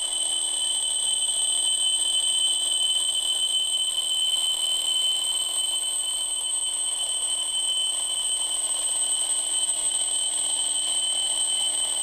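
The bell alarm of a Westclox Big Ben Classic 1964-reproduction quartz alarm clock ringing steadily without a break, a high metallic ring.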